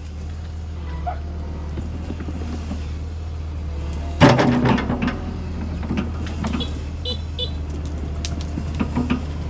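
Sumitomo SH120 A3 excavator's diesel engine running with a steady low drone as the machine moves forward. About four seconds in there is a sudden loud clatter, followed by scattered rattles and clicks.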